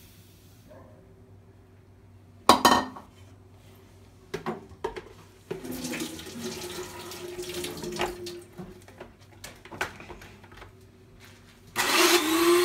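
Kitchen bowls being handled, with a loud knock about two and a half seconds in, scattered clicks and a stretch of hissy noise in the middle. Near the end an electric hand mixer switches on and runs with a steady whir, its pitch rising slightly as it comes up to speed, beating eggs and sugar in a plastic bowl.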